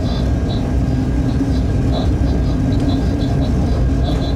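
Freight train running at speed, heard from the cab: a steady heavy rumble of wheels on rail and running gear, with a steady hum under it. Faint, short, high-pitched squeaks come and go.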